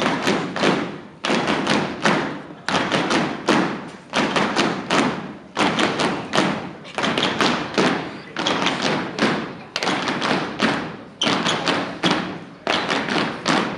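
A group of dancers doing a body-percussion clap routine: rhythmic hand claps and thumps in repeating phrases, echoing in a large hall.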